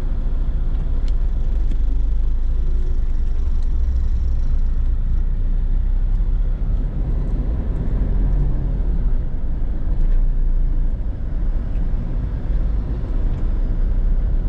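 Steady low rumble of engine, tyre and road noise heard from inside a car's cabin at highway speed.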